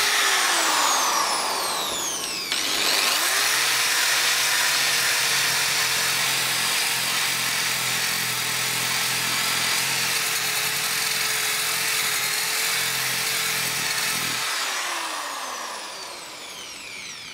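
ProEkco EP6411 700 W electric rotary polisher, fitted with a sanding disc, running at high speed while sanding a wooden board. Its motor whine dips and picks up again about three seconds in, holds steady, then is switched off and winds down near the end.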